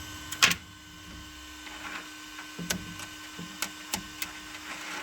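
Anycubic Kobra S1 3D printer running with a faint steady hum, broken by several sharp clicks, the loudest about half a second in.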